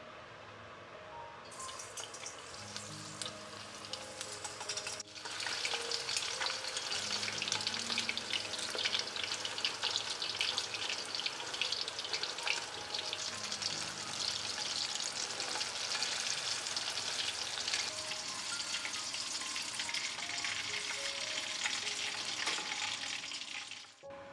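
Meat-stuffed eggplant pieces deep-frying in hot oil, a dense crackling sizzle, while chopsticks move them so the meat does not stick to the pot's bottom. The sizzle comes in about two seconds in, gets louder about five seconds in, and stops just before the end.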